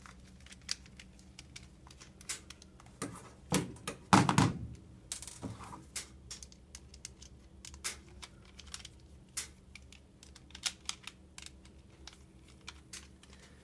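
Scattered light clicks and ticks of a small bit screwdriver turning tiny Phillips screws out of the ends of a metal external hard drive enclosure. A cluster of louder knocks and handling sounds comes about four seconds in.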